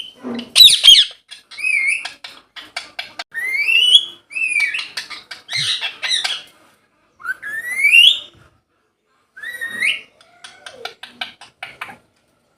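Indian ringneck parrots calling: shrill rising whistled screeches every few seconds, a loud harsh squawk about half a second in, and runs of rapid short clicking chatter between the calls.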